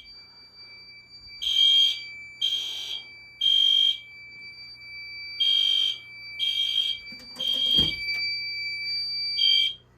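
Fire alarm sounding the temporal-3 evacuation pattern after a smoke detector has been tripped: high-pitched beeps of about half a second, three in a row, then a pause, repeated, with a faint steady whine behind them. A knock comes near the end of the second group, and the beeping cuts off partway into a third group.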